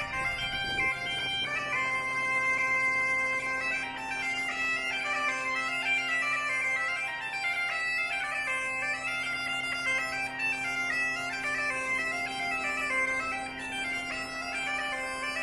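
Bagpipe music: a steady drone held under a quick, ornamented chanter melody.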